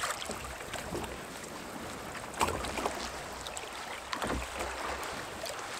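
Water lapping and slapping against a kayak hull on choppy sea, with wind on the microphone. Two louder slaps or gusts come about two and a half and four and a quarter seconds in.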